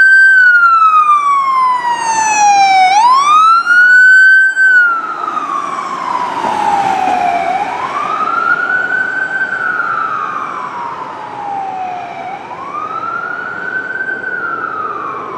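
Ambulance siren on wail passing by. Each cycle rises quickly and falls slowly, about once every five seconds. It is loudest for the first few seconds, then fades after about five seconds as the ambulance drives away, with its engine and tyre noise underneath.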